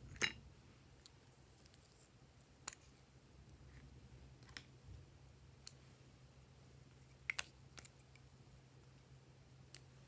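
Scattered light clicks and taps of small plastic items being picked up and set down, the loudest about a quarter second in and a quick double click about seven seconds in, over a faint steady low hum.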